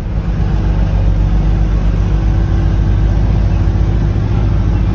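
Diesel engine of a Mercedes-Benz Vario 818 expedition truck running steadily under load as it climbs a steep gravel mountain track, with a low, even drone.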